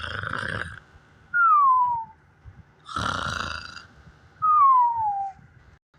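Cartoon-style snoring, twice: a rasping snore on the breath in, then a thin whistle that falls in pitch on the breath out. The falling whistles are the loudest part.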